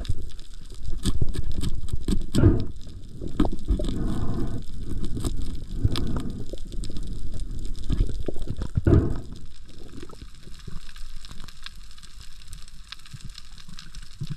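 Muffled underwater water noise picked up by a submerged camera, with scattered knocks and clicks while a speared fish is handled on the spear and stringer. It quiets down about ten seconds in.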